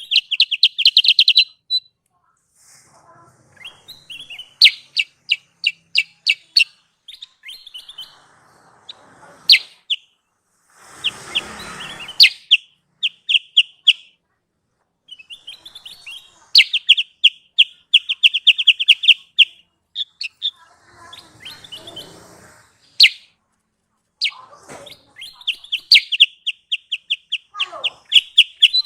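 Kutilang sutra songbird calling as a lure call: repeated runs of fast, high, sharp chirps that rattle into quick trills, separated by short pauses. Twice there is a brief hiss-like burst of noise between the runs.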